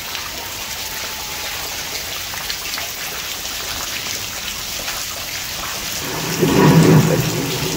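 Heavy rain falling steadily as a downpour, a constant hiss. About six seconds in, a louder low rumble swells for a second or so and then fades back into the rain.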